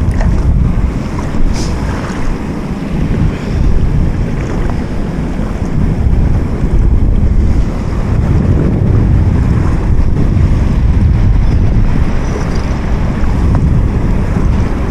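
Wind buffeting the microphone, a loud steady low rumble, over water lapping at the bank, with one sharp click about a second and a half in.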